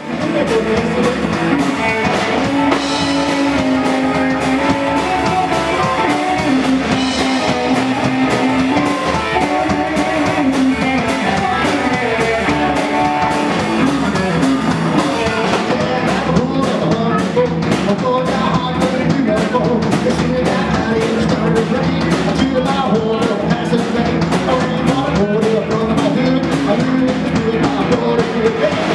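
Live band playing rock and roll with a slapped upright bass, hollow-body electric guitar and drums, with a steady driving beat.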